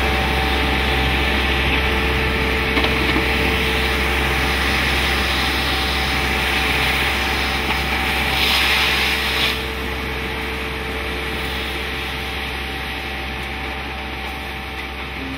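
Bucher Schoerling CityFant 6000 street vacuum sweeper running, its suction hose drawing air in with a steady rushing hiss over a low engine rumble and a steady whine. About eight seconds in the hiss briefly grows louder, then the level eases slightly.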